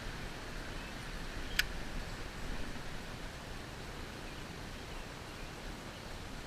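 Steady outdoor hiss, with one sharp click about a second and a half in.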